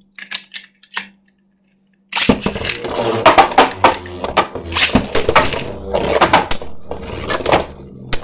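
A few light plastic clicks, then, about two seconds in, two spinning Beyblade tops (a 3D-printed Hero Samuraizor and a Super Hyperion) clattering against each other and the plastic stadium walls with many sharp hits over a steady spinning hum.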